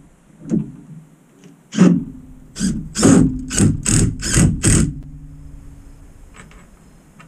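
Cordless Makita impact driver driving a screw into the wooden frame in short trigger pulls: a brief burst, another near two seconds in, then about six quick bursts roughly half a second apart, fading after about five seconds.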